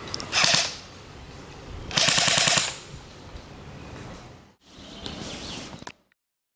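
Airsoft electric rifle (AEG) firing two full-auto bursts: a short one, then a longer one about two seconds in, each a fast, even rattle of shots.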